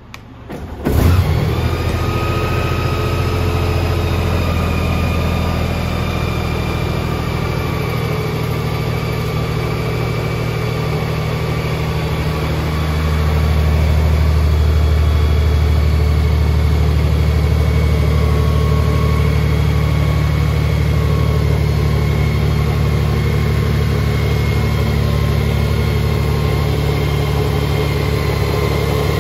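Honda GL1800 Gold Wing's flat-six engine starting about a second in, then idling steadily. It gets a little louder from about halfway through.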